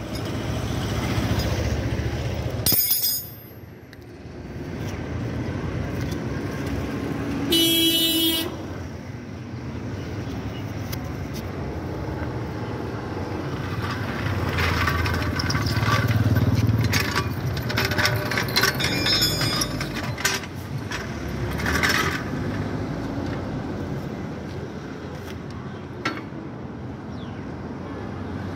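Road traffic passing, with a vehicle horn honking briefly about eight seconds in.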